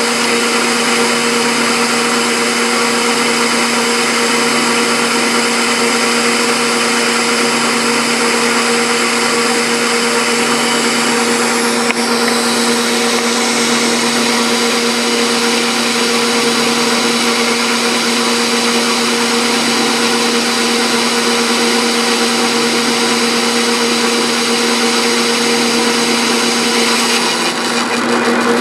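Metal lathe running steadily under power, driven by a 1 hp motor on a single V-belt. It gives a steady hum with a higher whine, likely while a high-speed steel tool turns a 3-inch pulley blank. There is a brief change in the sound about twelve seconds in.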